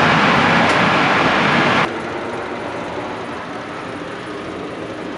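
Loud, steady road-traffic noise from a vehicle on the street. It cuts off suddenly about two seconds in, leaving a quieter steady background hum.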